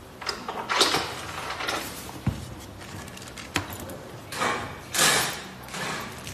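Rummaging in a cardboard box of parts: cardboard and packaging rustling and scraping in irregular swishes, with a sharp click and a soft knock among them.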